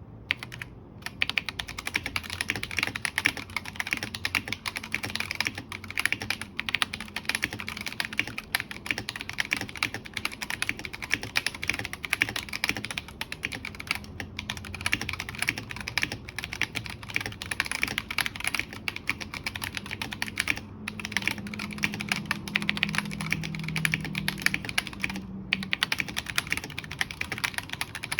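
Continuous typing on a Tecware Phantom 87 mechanical keyboard with Akko Ocean Blue tactile switches in a steel plate and PBT OEM-profile keycaps: a dense stream of key clacks broken by a few brief pauses.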